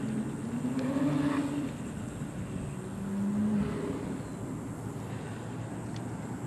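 An engine hum, its pitch gliding up slightly about a second in, then holding steady until the higher tone drops out about three and a half seconds in.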